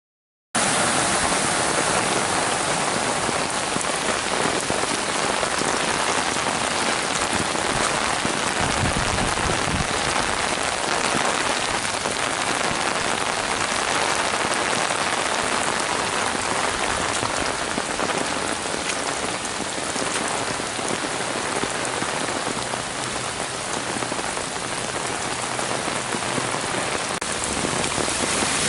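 Heavy rain pouring steadily, a dense even hiss that starts abruptly about half a second in.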